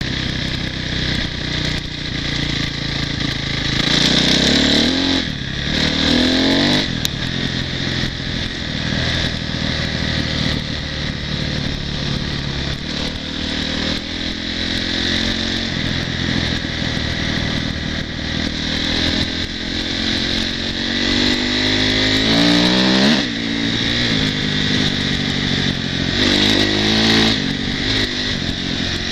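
Off-road motorcycle engine running as the bike is ridden, revving up and easing off; its pitch climbs several times under throttle, most sharply a little over twenty seconds in.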